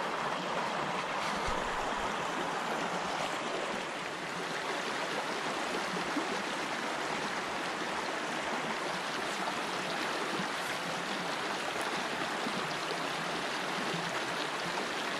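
Small shallow brook running over rocks and through a little riffle: a steady, even rush of flowing water.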